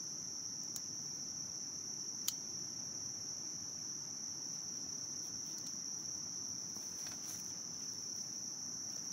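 Steady, high-pitched chorus of insects shrilling without a break. Two sharp clicks stand out about one and two seconds in, the second louder.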